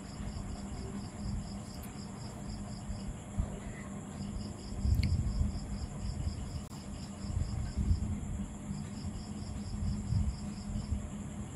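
An insect chirping in a steady rhythm of about four high chirps a second over a constant high hiss, pausing briefly twice. Beneath it a low rumble swells, loudest about five seconds in.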